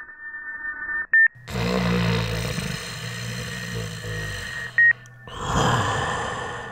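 Sci-fi sound effects: steady electronic tones fade out, then a short beep. A stretch of hiss over a steady low hum runs until a second short beep, and a swell of breathy noise follows and fades.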